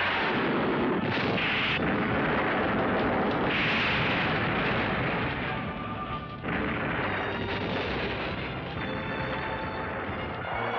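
A string of explosion sound effects with rushing fire, over background music. The blasts ease about six and a half seconds in, leaving the fire and the music.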